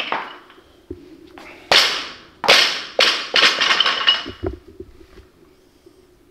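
Loaded barbell with rubber bumper plates dropped onto the lifting platform after a lift. Two heavy crashes come about a second apart, then a quicker rattle of smaller bounces with the steel bar ringing, settling with a low thud.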